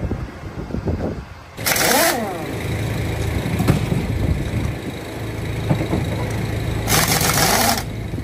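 Pneumatic impact wrench hammering at the lug nuts of a giant truck wheel to loosen them, in two bursts: a short one about two seconds in and a longer one near the end. A steady low engine idle runs underneath.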